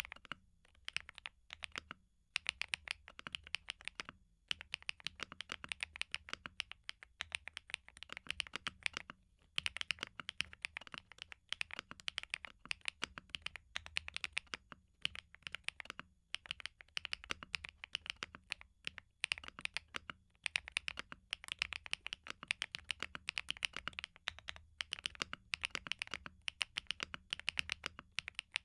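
PMO P75 75% mechanical keyboard with PC keycaps being typed on: fast runs of key clacks with short pauses between them.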